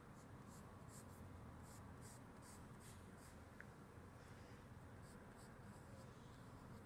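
Faint scratching of a graphite pencil on a sheet of paper as a line is drawn, in a series of short strokes about two a second.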